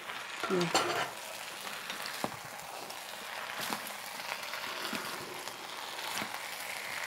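Dakgalbi (spicy chicken, cabbage and sweet potato) stir-frying in a pan: a steady sizzle with the scrape and occasional knock of two wooden spatulas turning it. The freshly added cabbage is being fried down to wilt.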